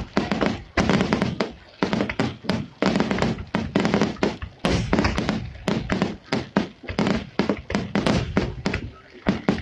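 Finale barrage of aerial firework shells bursting in rapid succession: a dense run of booms, several a second, with crackle between them and brief lulls about two seconds in and near the end.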